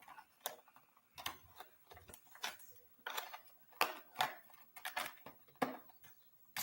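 Irregular light clicks and crinkles of plastic packaging being handled while a metal hunting broadhead is taken out of its pack.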